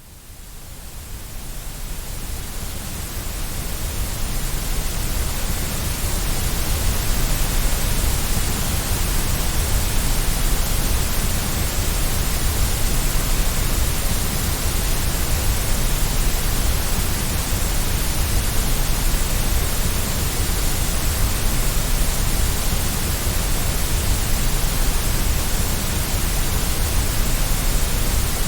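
Steady synthetic white noise, an even hiss with no tone or rhythm, fading in over the first few seconds and then holding constant.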